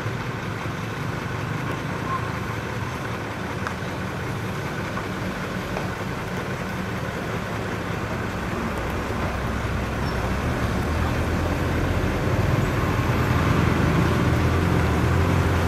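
Heavy diesel machinery engine running steadily, growing louder about two-thirds of the way through.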